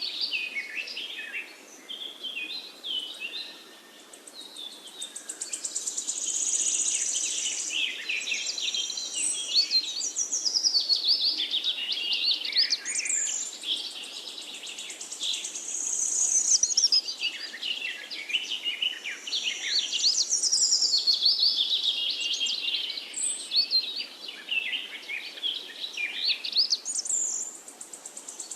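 Several birds singing and chirping together in a forest chorus: overlapping quick trills, chirps and whistles that go on without a break, over a faint steady background hiss.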